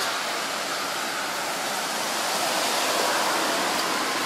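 Steady rushing of storm wind with rain: an even hiss with no separate events, growing slightly louder after the middle.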